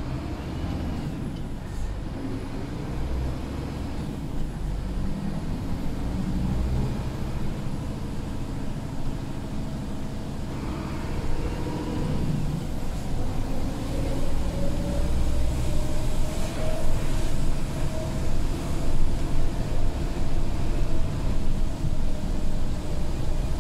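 Scania P250 truck's diesel engine running, heard from inside the cab while driving, with tyre noise from the wet road. About halfway through, a whine rises in pitch and the sound grows louder.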